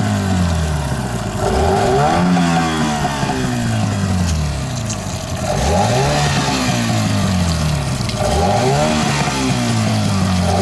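Two-stroke Yamaha 15 outboard motor being revved on the throttle and let fall back, over and over, about every three seconds: each time the pitch jumps up quickly and then sinks slowly.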